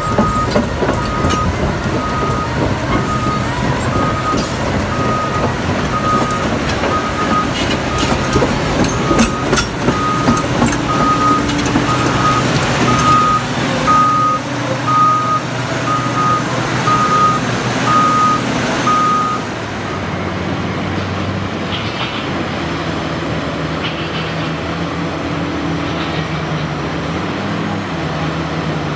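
Caterpillar 6015B hydraulic excavator travelling on its steel crawler tracks: its travel alarm beeps about once a second over the diesel engine's steady running, with the clanking of track links. About two-thirds of the way in the beeping stops and only the engine's steady running remains as the machine digs and swings a loaded bucket.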